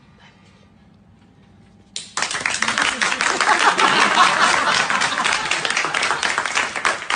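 A group of office workers suddenly breaks into loud clapping and cheering about two seconds in, after a quiet stretch of room tone.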